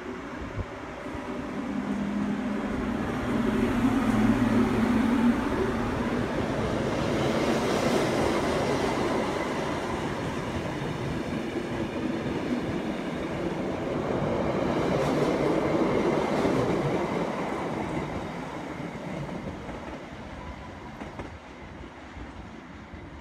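Metre-gauge electric locomotive and its passenger coaches running past on the station track. A low motor hum swells over the first few seconds as the locomotive passes, then the coaches' wheels roll by with a steady rattle and a second swell midway, fading away near the end.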